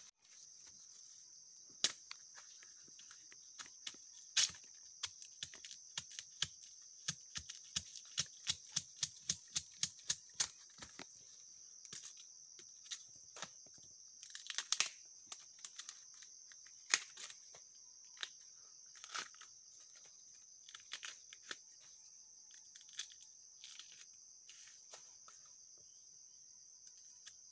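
Bamboo shoot sheaths being snapped and torn off by hand: a series of sharp cracks and rips, coming quickly one after another between about six and eleven seconds in, then more scattered. A steady high buzz of insects runs underneath.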